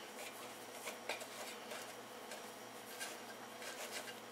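Faint, scattered soft taps and rustles of fingers pressing biscuit dough circles into the cups of a metal muffin tin.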